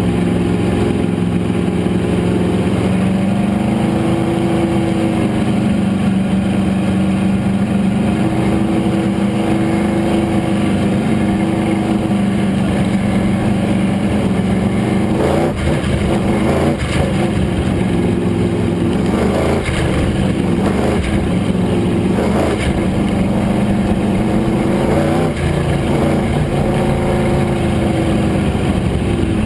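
Modified race car engine running hard at speed during a qualifying lap. The pitch steps up a few seconds in, then dips and rises repeatedly in the second half as the revs change.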